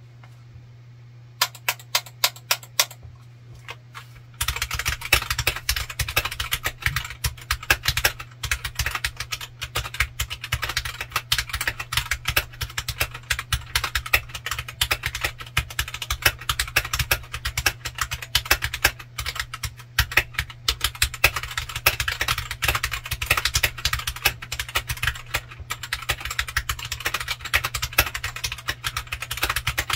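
Typing on a Royal Kludge RK100 Pro, a CNC-aluminium-cased 96% mechanical keyboard with stock Gateron Brown tactile switches, PBT keycaps and no internal dampening, a build the reviewer finds pingy. A few scattered keystrokes come about a second and a half in, then continuous fast typing from about four seconds in, over a steady low hum. Recorded through a phone's microphone.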